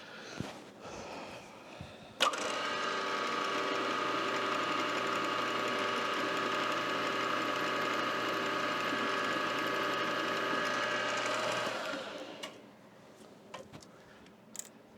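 A machine tool's electric motor and spindle switch on with a click about two seconds in and run at a steady whine for about ten seconds, then wind down and stop. A few light clicks follow.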